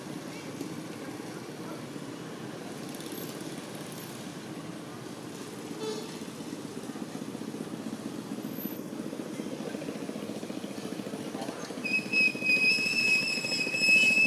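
Steady low engine rumble of passing vehicle traffic. About twelve seconds in, a high thin squeal starts and holds as the loudest sound.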